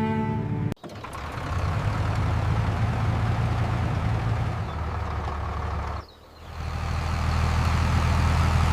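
Combine harvester engine running with a steady low rumble. The rumble drops away briefly about six seconds in, then comes back. A bowed-string music phrase ends abruptly just under a second in.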